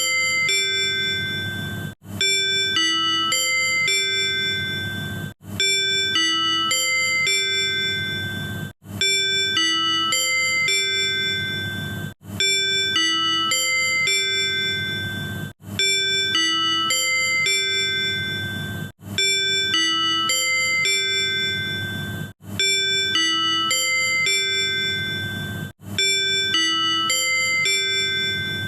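Tobu 100 series Spacia's manual in-car chime: a short multi-note ding-dong melody, looped about every three and a half seconds, over a steady low hum. It is the chime sounded before a conductor's announcement or an on-board sales announcement.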